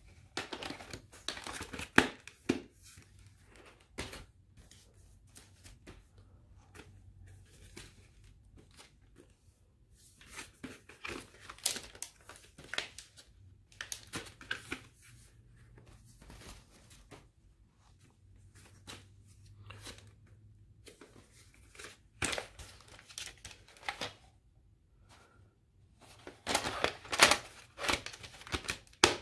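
Plastic VHS clamshell cases being handled: cases opened and shut and cassettes lifted out and dropped back in, giving clusters of plastic clicks, snaps and rattles with quiet gaps between, the busiest and loudest near the end.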